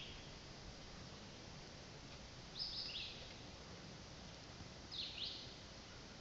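A bird calling twice, each call a pair of short high chirps, about two and a half seconds apart, over a faint steady outdoor hiss.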